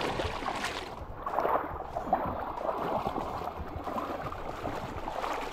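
River water rushing and splashing.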